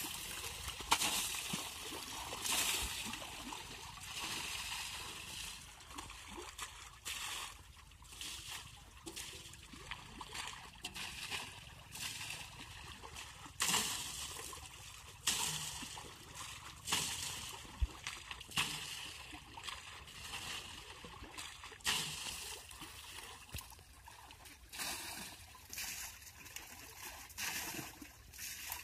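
Pond water thrown by the mugful against a tractor's rear tyre and bodywork, splashing again and again at irregular intervals of a second or two, with the shallow water sloshing around in between.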